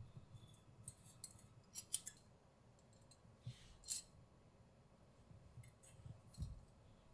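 Faint, sparse sharp clicks and snips of small parts being handled, several in quick pairs in the first two seconds, with a soft low thump near the end.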